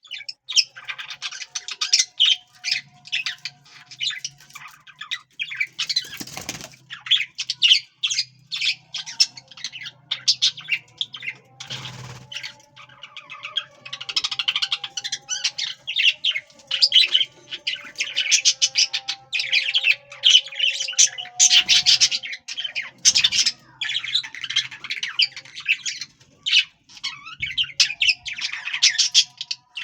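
A pair of budgerigars chattering and warbling without a break, a fast stream of chirps and squawks, with a couple of brief thumps partway through.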